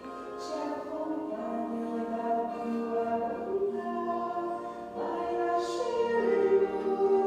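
Choral music: voices singing slow, held notes that change every second or so.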